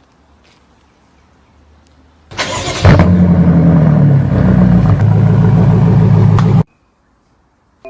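A car engine cranked over by its starter for about half a second, catching with a loud flare, then settling into a steady fast idle. It cuts off suddenly about four seconds later.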